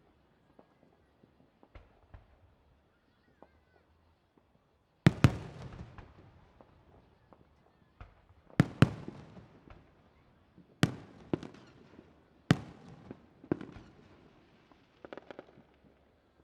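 Firework shells bursting overhead. A quiet stretch is followed by sharp booms with echoing tails, starting about five seconds in, including a quick double bang. More booms follow every second or two, with a few smaller pops near the end.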